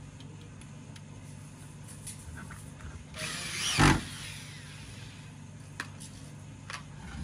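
A corded handheld power drill runs for about a second roughly three seconds in, its pitch rising and then falling, loudest just as it stops. A steady low hum underlies it, with a few light clicks afterwards.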